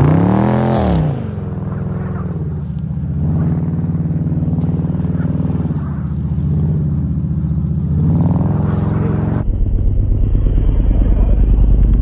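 Jeep's 5.7-litre HEMI V8 revving up and back down in the first second, then running under throttle through deep snow with traction control off, its pitch rising and falling. For the last couple of seconds wind buffets the microphone with a heavy low rumble over the engine.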